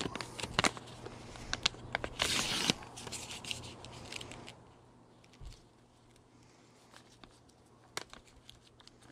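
Crinkling and rustling of a foil-lined plastic candy pouch being handled and pulled at its top to tear it open, loudest in the first few seconds, then faint with a few small crackles after about four and a half seconds.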